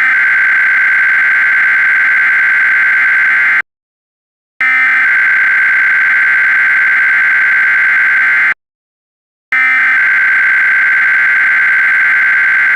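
Emergency Alert System SAME data header: three bursts of shrill, warbling digital data tones, each about four seconds long with a second of silence between them, the coded header that opens an alert message.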